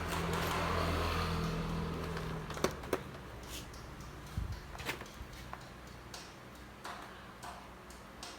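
Low electrical hum that stops about two and a half seconds in, followed by scattered sharp clicks and taps.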